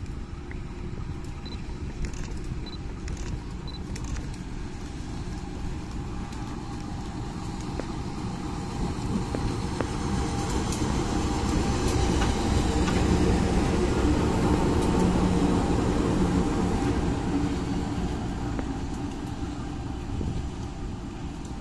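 Pair of coupled CC201 diesel-electric locomotives passing close by, their diesel engines rumbling. The sound builds as they approach, is loudest a little past the middle, then fades as they move away.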